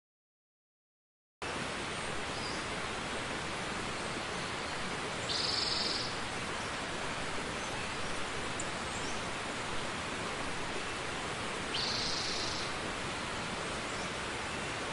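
Silence, then after about a second and a half a steady, even hiss of noise starts and carries on unchanged, with two short high-pitched sounds about five and twelve seconds in.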